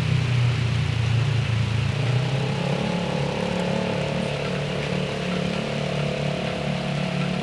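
Steady hiss of rain with a vehicle's engine hum underneath. The engine's low tones change pitch about two seconds in, and a higher hum comes in for a few seconds.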